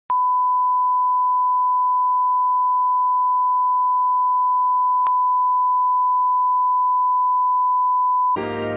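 Television test-card reference tone: one steady, unbroken pure tone that cuts off near the end as music starts.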